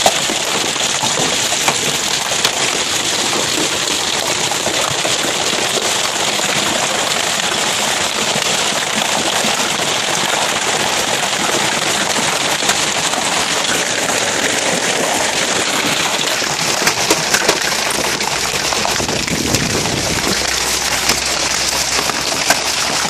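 Hail mixed with heavy rain pelting a yard: a dense, steady clatter and hiss. Now and then a larger hailstone strikes with a sharp louder crack, a few of them close together near the end.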